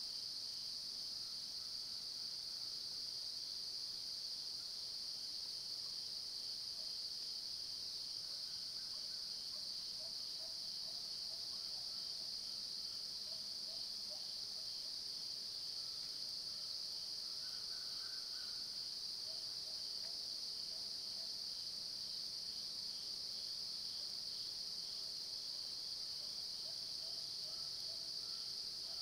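Steady, high-pitched chorus of late-summer insects, crickets and the like, droning without a break. A few faint short chirps sound in the middle.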